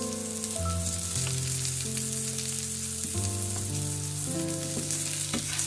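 Oil sizzling steadily as fritters deep-fry in a wok, with scattered crackles, over soft sustained background music chords.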